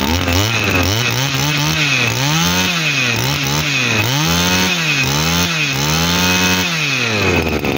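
Tanaka 23cc two-stroke brush cutter engine being revved about six times in a row, its pitch rising and falling with each blip of the throttle, then dropping back near the end.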